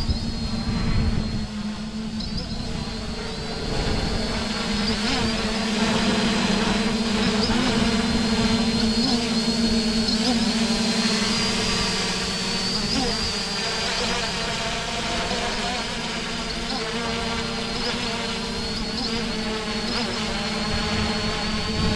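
Holybro X500 V2 quadcopter hovering: its four brushless motors and propellers give a steady buzzing hum. The pitch wavers slightly as the flight controller shifts motor speeds during an autotune.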